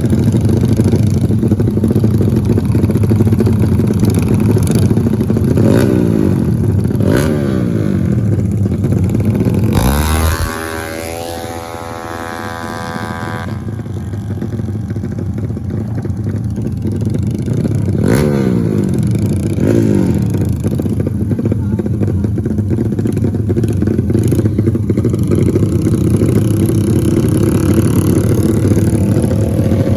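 Trail motorcycle engine running and revving repeatedly, its pitch rising and falling with the throttle. About ten seconds in it drops back for a few seconds while a higher rising whine climbs, then the revving picks up again.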